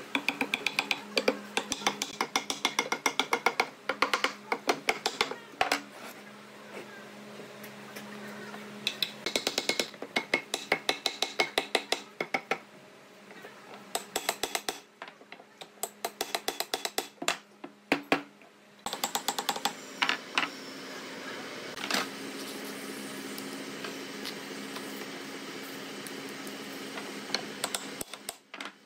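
Quick runs of sharp hammer taps, several a second, driving the parts of a wooden table base together, with short pauses between runs. The taps stop about two-thirds of the way through, leaving a steady low hum.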